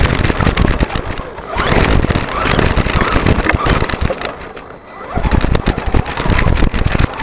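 Onboard sound of a Traxxas Telluride 4x4 RC truck driving over loose gravel: the tyres crunch and the chassis rattles in a dense, irregular crackle. It goes quieter for a moment about four to five seconds in.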